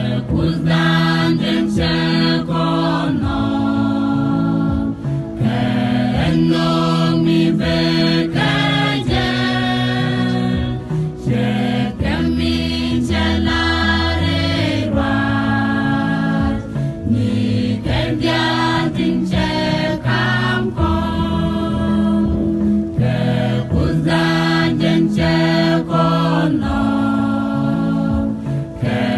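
Mixed choir of women and men singing a Christian gospel song together, holding several parts at once.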